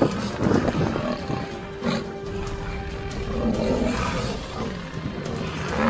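Lion growling and roaring over background music.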